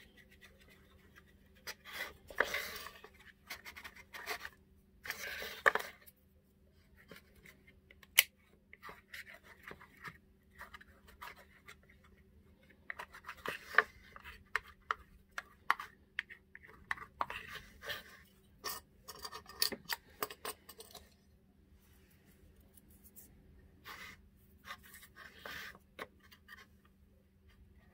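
Faint, intermittent scraping of a thin wooden stick spreading glue over a flat board, with light clicks and taps as thin wooden craft sticks are handled and pressed into place.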